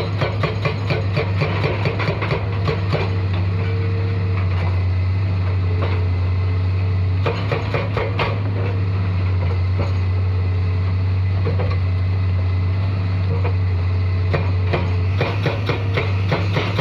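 Hitachi excavator's diesel engine running steadily with a low drone, with quick metallic clanking, several knocks a second, over the first few seconds and again near the end.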